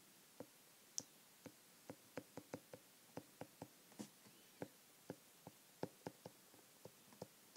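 Faint, irregular clicks of a stylus tapping on an iPad's glass screen while handwriting, about two or three a second.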